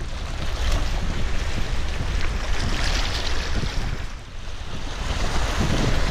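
Small sea waves washing and breaking over a shallow rocky shore, swelling and easing, with wind rumbling on the microphone.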